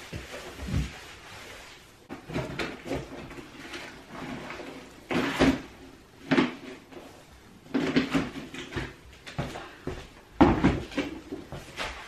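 Broom sweeping a tiled floor: short, irregular scraping strokes and knocks of the broom head on the tiles, coming every second or two.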